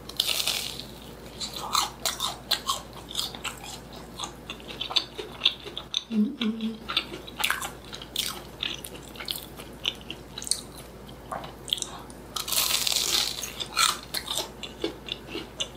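Close-miked eating: crunchy bites and chewing, with many small irregular crunches and mouth clicks. There are two louder, longer crunches, one at the start and one about 12 to 13 seconds in.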